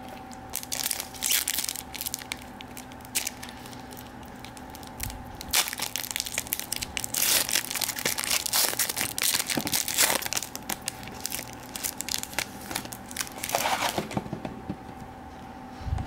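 The foil wrapper of a trading-card pack being torn open and crinkled in the hands, crackling in irregular bursts that stop about two seconds before the end.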